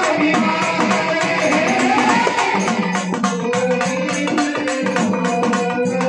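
Marathi folk music: a fast, steady beat on a dimdi, a small hand-played frame drum, under a melody line that glides in the first half and then moves in long held notes.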